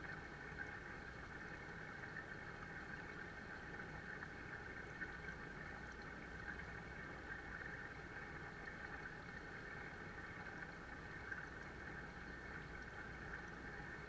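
Pond waterfall pouring steadily into a koi pond: a faint, even rush of water, with a steady low hum beneath it.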